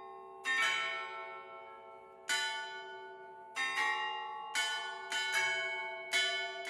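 A clock tower's chime of tuned bells struck one at a time in a slow melody, about eight notes, each left ringing under the next.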